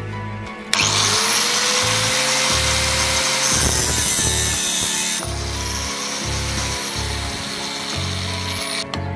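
Angle grinder in a cut-off stand starting up about a second in and cutting through a thin metal rod with an abrasive disc, harshest in the middle of the cut. Its whine then falls away slowly near the end as the disc runs down.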